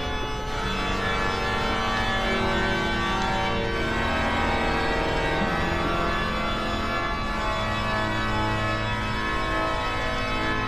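Organ music playing slow, sustained chords that shift every second or so.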